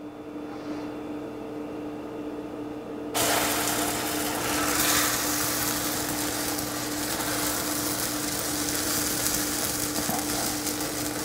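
Egg-white crepe batter hitting a hot, greased nonstick frying pan: a sudden sizzle starts about three seconds in and keeps on steadily. A steady low hum runs underneath.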